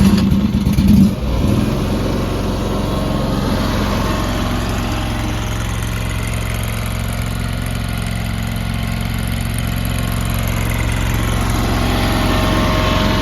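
The 23-horsepower gas engine of a new Landhero skid steer loader starting on a little choke. It catches with an uneven, louder first second, then settles into a steady run.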